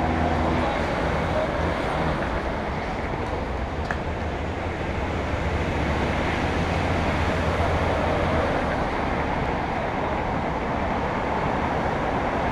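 Steady city background noise, a continuous traffic-like rumble with a low hum underneath and no distinct events.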